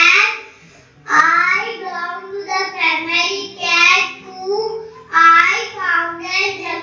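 A young child singing into a microphone, with a short break about half a second in, over a quiet backing tune of low held notes.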